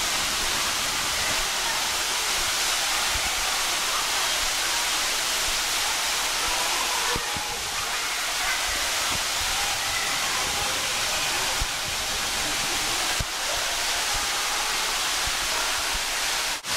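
Steady rushing of falling water from an enclosure waterfall, with a brief dropout near the end.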